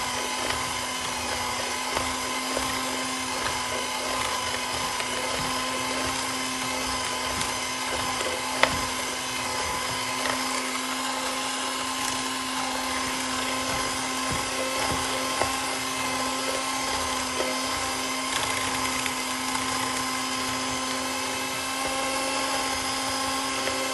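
Electric hand mixer running steadily at one constant pitch, its spiral hooks working butter, flour and sugar into streusel crumbs in a plastic bowl. A single sharp click about nine seconds in.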